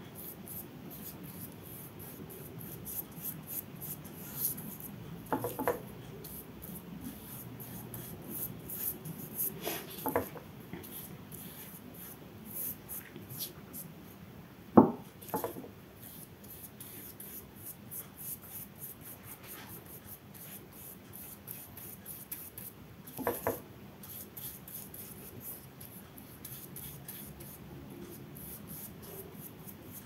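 A large flat paintbrush scrubbing gouache onto paper in quick short strokes, a soft scratchy rustle. A few light knocks break in, the sharpest about halfway through.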